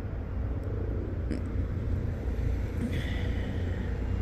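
Steady low rumble of distant engines, with a faint high whine about three seconds in.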